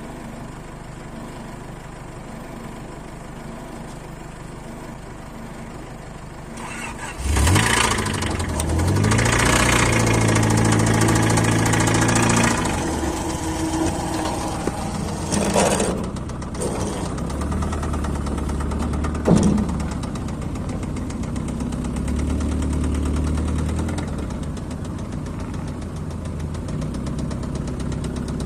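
Honda car engine cranked and catching about seven seconds in, its revs rising and held high for a few seconds, then dropping to an uneven idle with a couple of short blips of throttle. The engine knocks as it runs, the fault the owner is showing.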